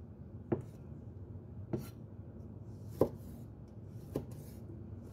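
Cleaver slicing tomatoes on a wooden chopping board: four sharp knocks of the blade hitting the board, about one every second and a quarter.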